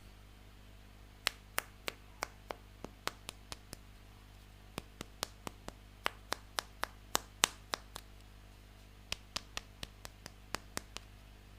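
Sharp taps and clicks of small hard plastic toy pieces, in three quick runs of about ten each, a few per second, with short pauses between the runs.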